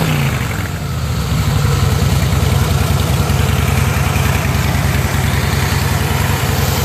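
Harley-Davidson Softail Deluxe's air-cooled 103 cubic inch Twin Cam V-twin idling steadily, heard close by its chrome mufflers.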